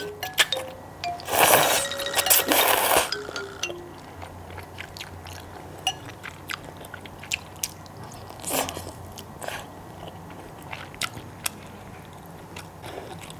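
A person eating udon noodles close to the microphone: a loud noisy slurp of the noodles a little over a second in, a shorter one around eight seconds in, and chewing with many small clicks between them.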